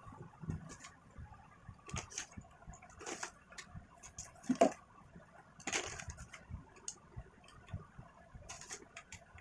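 Scattered light knocks and handling rustles, with one louder knock about four and a half seconds in.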